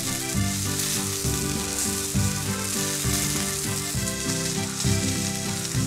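Wild boar loin sizzling as it sears in very hot oil in a frying pan, a steady hissing fry. Background music with changing notes plays under it.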